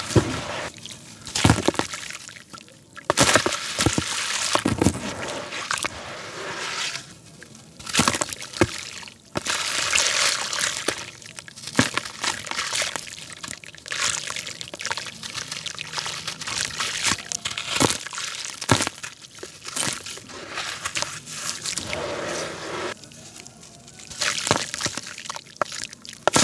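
Hands crumbling and squeezing wet lumps of black concrete in a tub of water: gritty crunching and crackling mixed with sloshing and squelching of the watery paste, in uneven spells.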